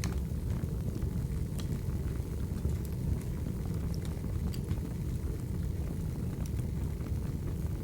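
Wood fire burning: a steady low rush with scattered sharp crackles and pops from the logs.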